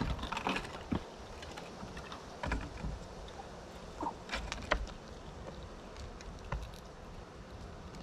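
Squirrels scrabbling: irregular sharp taps, clicks and scratches, busiest near the start and again about four and a half seconds in.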